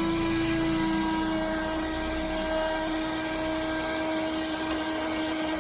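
Handheld car vacuum cleaner running with its extension tube fitted: a steady motor whine at an even pitch.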